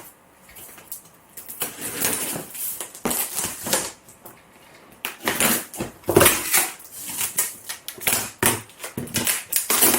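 A heavy cardboard shipping box being opened with a screwdriver: irregular bursts of scraping, tearing and rustling, with a few sharp clicks.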